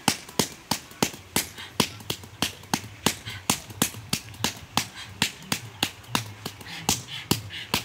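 Hands slapping on a filled sack, drumming a steady beat of sharp slaps about three a second, some harder than others.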